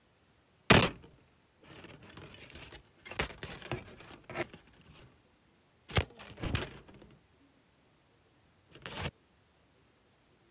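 Close handling noise: a sharp knock, then a few seconds of rustling and crinkling, two more knocks about six seconds in, and a short rustle near the end.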